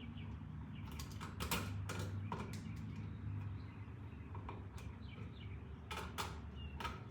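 Screwdriver clicking and scraping on the metal screws of a wall electrical outlet as its mounting screws are backed out, over a steady low hum.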